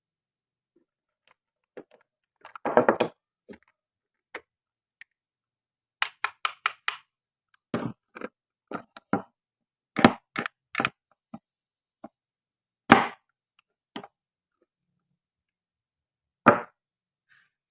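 Toy play food of plastic and wood being cut with a toy knife and handled: sharp clacks and hollow knocks, a quick run of about five clicks in the middle, and single loud knocks near the end.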